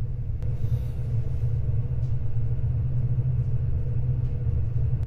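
Steady low rumble of ship's machinery with a faint steady hum over it. It drops off suddenly at the very end.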